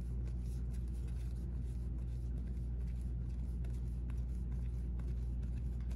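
Faint rustling and light ticks of baseball trading cards being handled and flipped through, over a steady low hum.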